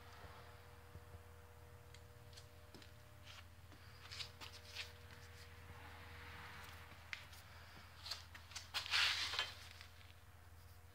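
Faint handling noise from a handheld camera: scattered clicks and rustles over a steady low hum, with a louder burst of rustling about nine seconds in.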